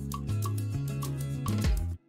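Background music with a steady beat and a bass line, cutting off abruptly at the very end.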